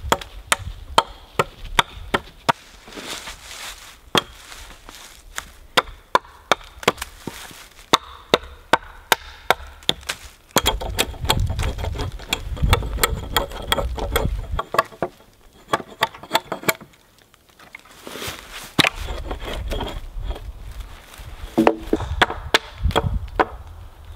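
Hatchet chopping a wooden pole: a run of sharp chops, about two or three a second. Midway the chops give way to a few seconds of low rumbling handling noise, then chopping starts again.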